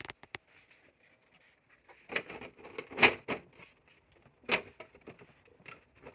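A few sharp clicks and knocks of hands handling hard objects, the loudest about three seconds in and another about four and a half seconds in.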